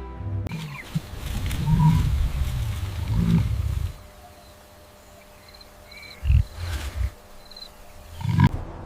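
Deep growls from a large wild animal over the first four seconds, then a quieter stretch broken by a few short, low thuds and a last growl near the end.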